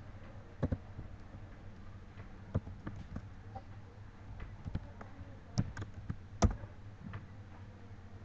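Computer keyboard and mouse clicking: single irregular taps, a few of them louder, the loudest about six and a half seconds in, over a faint steady hum.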